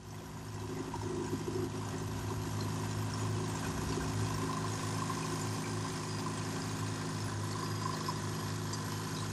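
Boat motor running steadily with an even, low hum, fading in over the first second or two.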